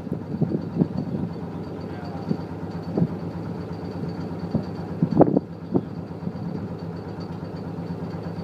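A boat's engine running steadily, a low even hum, with irregular knocks and slaps, the loudest about five seconds in, as the bow meets choppy water.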